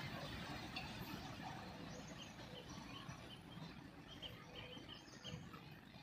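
Freight train of petroleum tank wagons rolling away on the rails, its rumble fading steadily, while a small bird chirps repeatedly over it.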